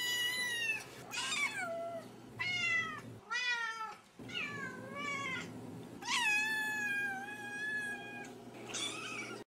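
A cat meowing over and over, about seven meows with pitch that slides up and down, the longest one about six seconds in drawn out for about two seconds, over a faint steady hum.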